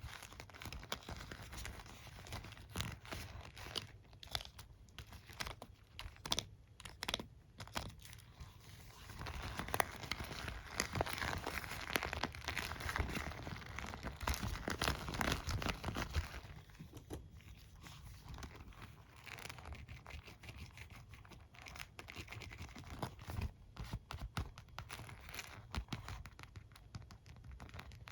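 Hairbrush and comb handled close to the microphone: bristles and teeth scratched, rubbed and tapped in quick, irregular clicks and scratchy strokes, with a denser stretch of scraping in the middle.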